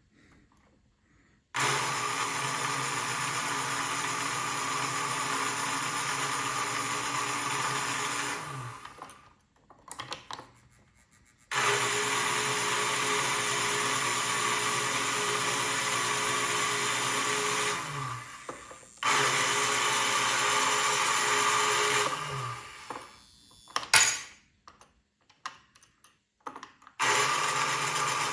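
Lionel #182 magnetic crane's electric motor running in four stretches of several seconds each as the controller buttons swing the crane and work the hoist. Each run starts suddenly and its pitch drops as it stops. A single sharp knock comes near the end.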